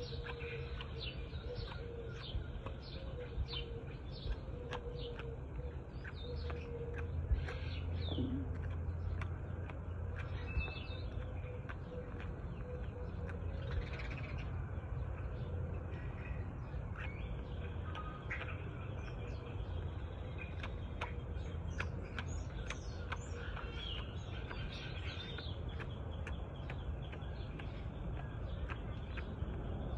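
Small birds chirping over and over over a steady low hum, with scattered sharp clicks from a howler monkey chewing a biscuit close by.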